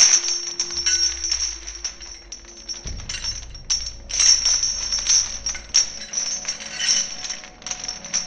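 Music with busy clinking, metallic percussion over low held bass notes that change every two to three seconds.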